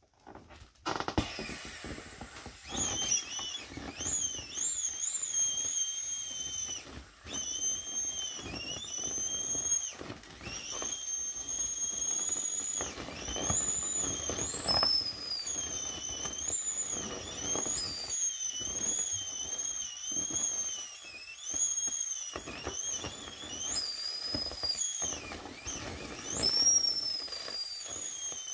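Air squealing out of an inflatable bunny toy as it is squeezed to deflate it: a high, wavering whistle that bends up and down with the pressure, over the rustle of the plastic being hugged flat. It starts with a bump about a second in.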